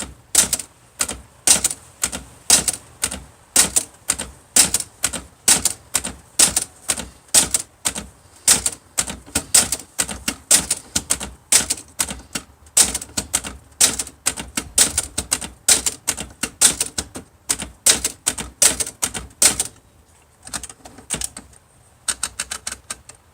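Olivetti-Underwood Studio 44 manual portable typewriter being typed on: sharp typebar strikes at a steady two to three a second, then a short pause and a few lighter strikes near the end.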